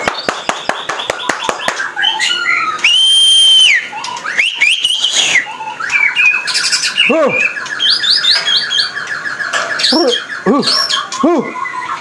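White-rumped shama (murai batu) singing a loud, varied song of whistles, glides and rapid repeated notes. It opens with a quick run of clicks and holds one loud whistle about three seconds in.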